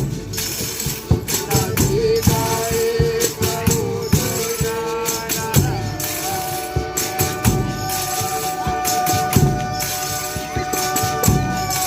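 Folia de Reis music: tambourines jingling and struck in a steady rhythm with drum beats under long held notes.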